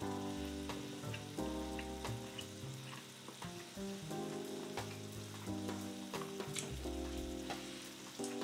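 Beef and mushrooms sizzling on a tabletop grill pan: a steady hiss with small crackles and pops. Soft background music plays under it, with slow chord changes.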